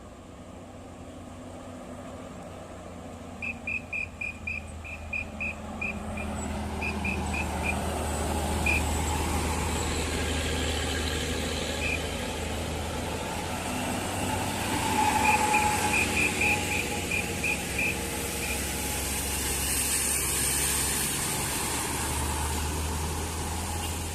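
A big diesel tour bus engine labouring up a hill and growing louder as it comes past. Twice there are quick runs of short, high beeps, several a second.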